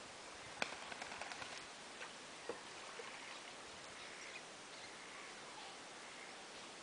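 Quiet outdoor ambience with faint chirps. A sharp click comes about half a second in, followed by a run of small ticks, and there is another click about two and a half seconds in.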